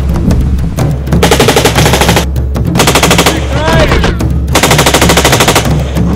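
Machine gun firing three rapid bursts, the second one short, with a brief whining tone between the second and third bursts, over a steady low rumble.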